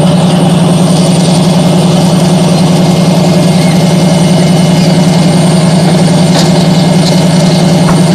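Heavy diesel engine idling steadily, a loud, even, throbbing hum.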